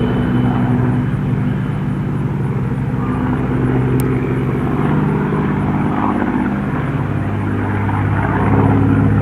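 Propeller-driven WWII warbird with a Rolls-Royce Merlin V12 engine running with a steady, deep drone. It grows a little louder near the end.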